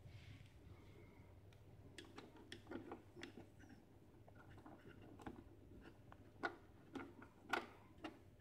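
Faint, irregular clicks and small taps of a screwdriver and fingers handling a screw and plastic parts inside a coffee machine's housing, the loudest few near the end, over a faint steady low hum.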